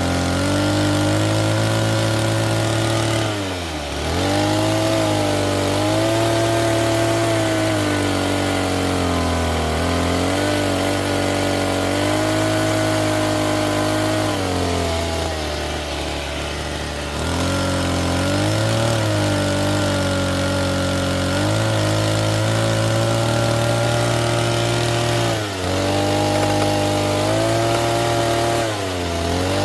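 Homemade radio-controlled excavator's motor running continuously, its pitch sagging and recovering again and again as the machine works under load.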